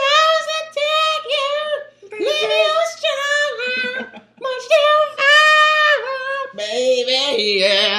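A man singing loud, high-pitched held notes without clear words, in short phrases of about a second each. Near the end the voice breaks into a strongly wavering, warbling note.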